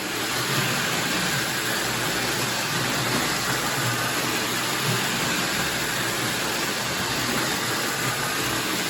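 Lionel 1130 Scout toy locomotive with a rebuilt motor, pulling its cars around the track: a steady whirring rumble of motor and wheels on rail.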